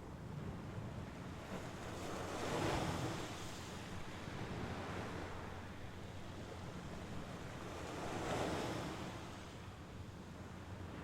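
Mediterranean Sea waves washing onto the shore, two waves swelling and receding, one about two and a half seconds in and another about eight seconds in, over a steady low rumble of wind on the microphone.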